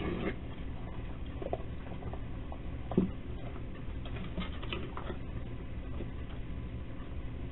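Raccoons eating and scrabbling at a steel food bowl and a wooden box, giving light scattered taps and clicks, with one sharper knock about three seconds in. A steady low hum from the camera's microphone runs underneath.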